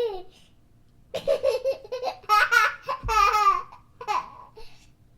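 A baby laughing: a giggle trails off at the start, then about a second in comes a run of high-pitched, pulsing giggles and squealing laughs lasting about three and a half seconds.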